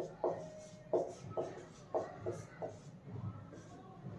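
Marker pen writing on a whiteboard: a run of short separate strokes, about eight in the first three seconds, then a pause.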